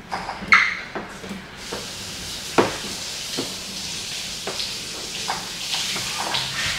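Plastic squeegee being pushed across wet paint protection film on a car hood, a wet hiss that settles in from about two seconds in, with several light knocks and taps as the squeegee is set down and moved.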